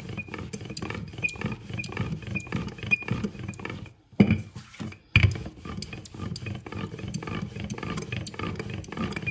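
Wooden rolling pin rolling back and forth over soft, floured paratha dough on a silicone mat, a continuous rubbing rumble. It pauses briefly about four seconds in, followed by two louder knocks about a second apart.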